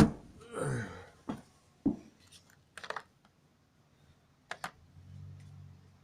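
Scattered sharp clicks and light knocks of small parts and tools being handled while a washing machine is taken apart, with a double click about four and a half seconds in.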